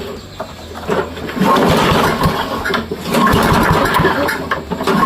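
Kohler 6.75 horsepower lawn mower engine starting up about a second in and then running roughly and unevenly.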